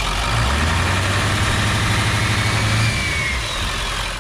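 A vehicle engine running loud, with a deep low drone that swells about half a second in and drops back near three seconds. The whole sound fades out at the end.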